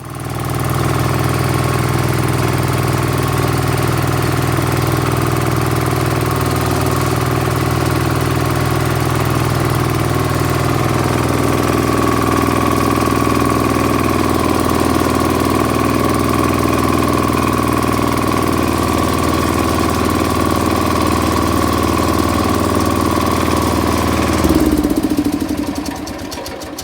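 Wheel Horse garden tractor engine running steadily, then shut off about 24 seconds in and winding down to a stop.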